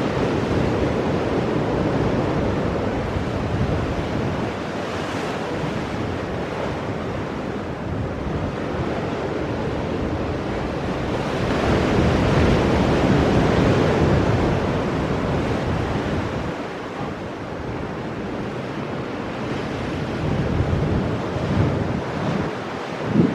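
Ocean surf breaking on shoreline rocks, a continuous rushing wash that swells to its loudest about halfway through. Wind rumbles on the microphone, with a brief sharp low bump just before the end.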